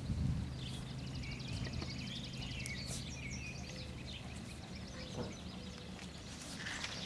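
Birds chirping over a steady low hum, with scattered faint scuffs and clicks of puppies moving over loose dirt and gravel.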